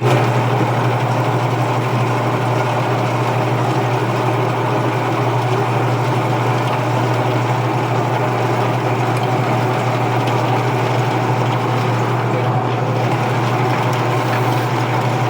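A machine running steadily: a strong, even low hum with a dense whirring noise above it, switching in and out abruptly.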